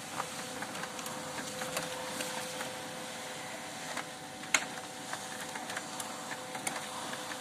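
HP LaserJet M1213nf laser printer running a print job: a steady motor hum with a faint tone, broken by a few sharp clicks, the loudest about four and a half seconds in. It is making the double sound on paper pickup that the technician blames on a faulty pickup clutch, the cause of its paper jams.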